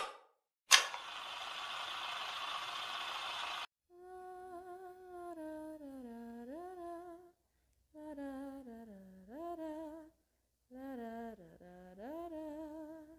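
A sharp click, then about three seconds of steady hiss that cuts off abruptly, followed by a voice humming a slow a cappella melody in three phrases, each dipping down in pitch and sliding back up.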